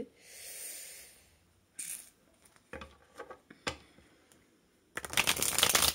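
A deck of divination cards being handled: soft sliding hiss, a few light clicks, then about five seconds in a loud dense rustle of the cards being shuffled for about a second.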